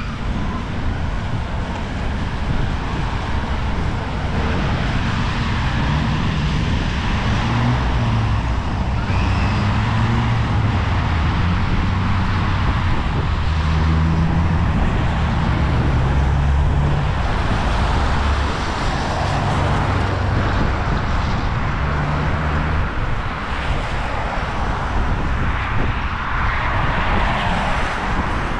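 Wind buffeting the microphone with a deep, unsteady rumble, over road traffic with cars passing.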